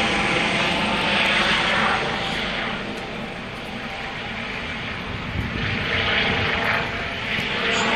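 Trauma helicopter flying away overhead, its rotor and turbine running as a steady noise with a faint whine, dipping somewhat in the middle and swelling again near the end.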